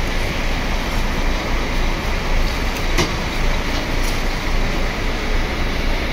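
Steady running noise of buses idling in a depot lot, with two sharp metallic clicks about three and four seconds in as a steel rod is worked into a bus's front bumper.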